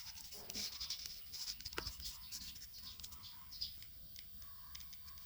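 Faint scratching and rustling of cardboard being handled, with one sharp click a little under two seconds in.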